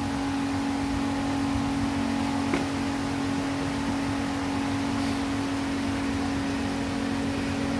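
Steady machine hum, an even drone with one short click about two and a half seconds in.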